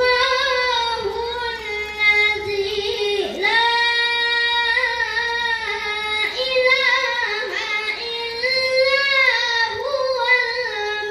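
A boy chanting Quranic recitation (tilawah) in a high, melodic voice through a microphone. He holds long, ornamented notes in phrases, with brief breaks between them.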